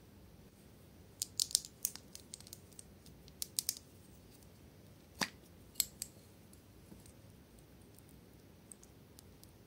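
Sharp clicks and snaps of a small plastic slime bottle being handled and its clear plastic cap worked open: a quick cluster of clicks a little over a second in, another cluster around three and a half seconds, two louder single snaps around five and six seconds, then faint ticks.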